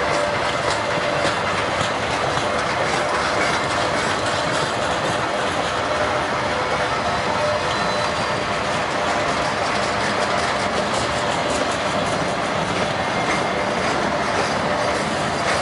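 Freight train cars rolling past close by: a steady rumble with wheels clicking over rail joints.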